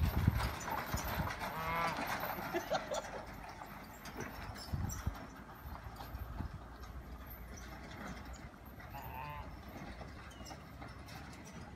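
Horse-drawn cart on a dirt track: the horse's hooves clop and the cart rattles, loudest at first and fading as it pulls away. There is a brief wavering call about two seconds in and another near nine seconds.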